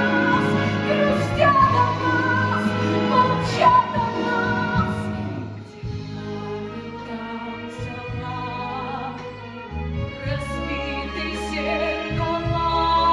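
A woman singing a stage-musical song with vibrato over instrumental accompaniment. The music grows quieter about six seconds in, and a deep bass note comes in near ten seconds.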